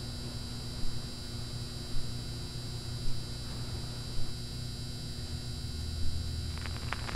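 Vinyl record surface noise before the music: a steady hum and hiss with a soft click every second or two, then crackle picking up near the end.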